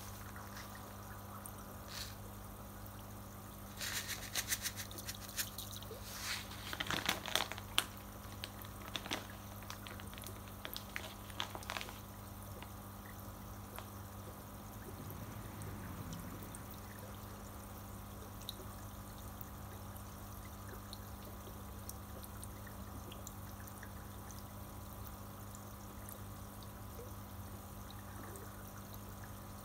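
Tank filter's return water trickling steadily into the fish tank over a low, steady pump hum. A run of small splashes and clicks comes from about four to twelve seconds in.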